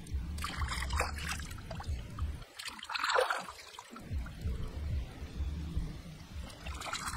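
Shallow water splashing and trickling as hands rinse skinned toad frogs in it, in a few short splashes, the loudest about three seconds in.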